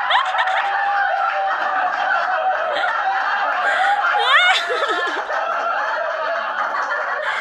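A group of men laughing together, many voices overlapping, with some excited calls and a quick high rising whoop about four seconds in.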